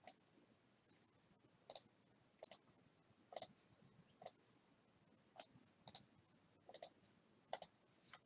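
Faint, irregular clicks of a computer mouse, about a dozen, spaced roughly half a second to a second apart.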